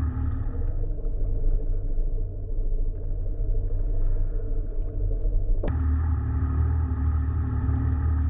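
Yamaha WaveRunner Jet Ski engine idling with a steady low rumble. About a second in the sound turns duller, and about five and a half seconds in a sharp click comes before the fuller engine sound returns.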